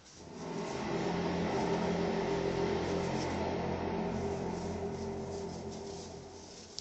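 A low, steady droning hum made of several held tones, of the kind presented as an unexplained 'sky trumpet' noise. It swells in over the first half second, holds, and tails off slightly before cutting off at the end.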